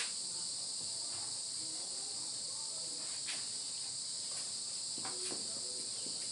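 A board being wiped clean by hand: faint rubbing with a few soft strokes, over a steady high-pitched hiss.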